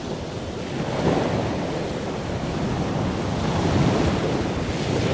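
Rough sea surf breaking on a sandy beach: a steady rush of water that swells about a second in and again near the end as waves crash, with wind buffeting the microphone.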